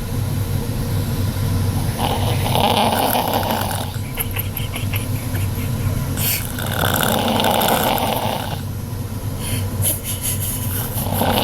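A woman snoring extremely loud in her sleep, one long snore roughly every four and a half seconds: two full snores, with a third beginning near the end. A steady low hum runs underneath.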